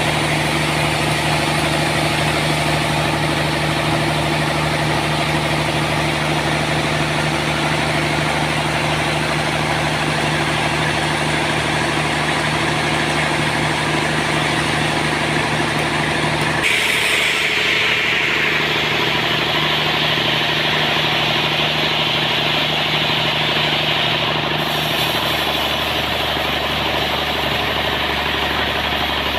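Engine-driven sawmill running steadily. About two-thirds of the way through, its sound changes suddenly and a higher hiss comes in.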